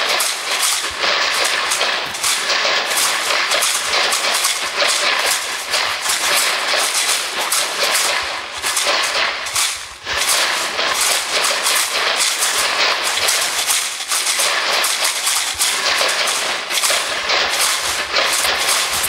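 Dense, static-like crackling noise from the performance's sound-art soundtrack, a steady hail of sharp clicks that briefly drops away about ten seconds in.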